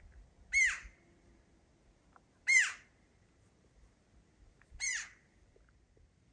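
A bird giving three short, loud calls about two seconds apart, each one rising and falling in pitch.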